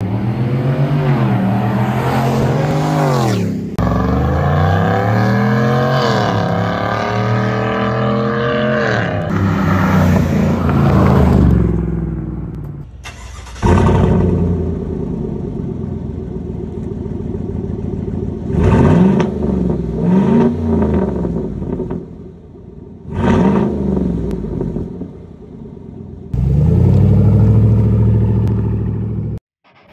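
2019+ Chevy Silverado 5.3L V8 through an MRT stainless cat-back exhaust, accelerating hard past with its pitch climbing, dropping at two gear changes and then fading. It is then cold-started with a sudden flare that settles to idle, revved four times in quick blips, and driven slowly away at a steady low rumble that cuts off near the end.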